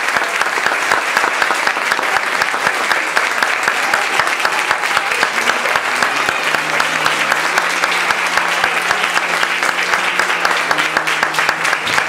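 Audience applauding: dense, steady clapping from a full hall.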